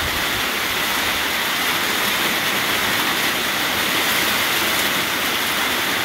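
Rain falling steadily: an even, unbroken hiss with no breaks or single drops standing out.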